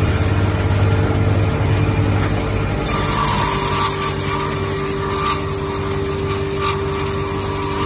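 Multi-blade circular sawmill running: a steady machine drone with several held tones. About three seconds in, the main tone dips slightly and a higher whine joins, as the blades take a load.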